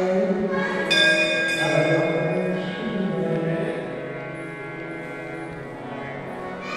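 A temple bell struck once about a second in, its bright ringing fading away over the next few seconds, over steady background devotional music in the hall.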